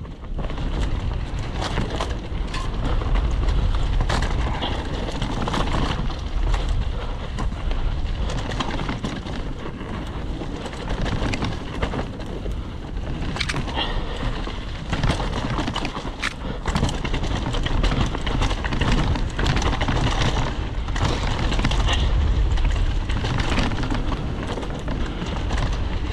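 Mountain bike riding fast down a dirt forest trail: wind rushing over the handlebar or helmet camera's microphone, tyres rolling over earth, leaves and roots, and frequent clicks and rattles from the chain and frame over the bumps.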